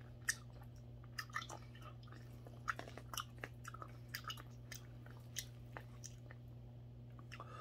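Close-up eating sounds of mackerel rice porridge: soft chewing and mouth smacks with short irregular clicks, some from a metal spoon scooping in a plastic takeout tray. A steady low hum runs underneath.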